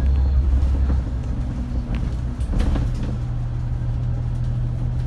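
Bus engine and road noise heard from inside the cabin, a steady low drone whose pitch steps up about a second in, with a few faint clicks midway.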